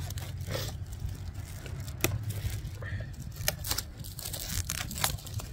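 Packaging being handled: scattered crinkles and sharp clicks over a steady low hum.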